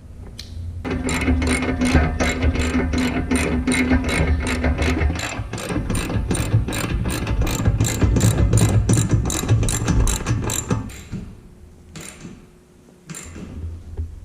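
Hand socket ratchet clicking steadily as it runs a roof-rack mounting bolt down, about three to four clicks a second, stopping about eleven seconds in; two single clicks follow near the end.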